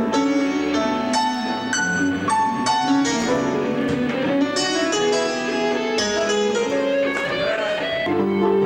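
Electric guitar played clean through a Peavey amplifier: a melodic line of quickly changing notes, several ringing together.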